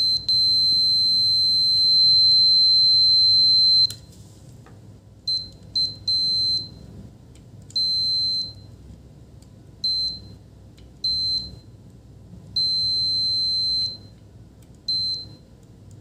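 CD800 digital multimeter's continuity beeper sounding a high electronic tone: one long beep of about four seconds, then a string of short beeps of uneven length as the probes touch and leave capacitor pads. The beep means the meter reads a low resistance between the probes.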